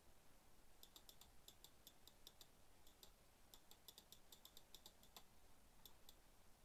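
Faint clicking of computer controls: sharp, separate clicks coming in quick irregular runs.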